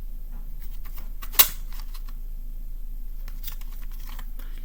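A plastic CD jewel case being handled and turned over in the hands: faint scattered ticks and taps, with one sharp click about a second and a half in, over a steady low hum.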